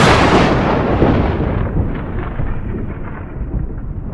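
A long roll of thunder, loud at first and slowly dying away, with faint crackles in its later part.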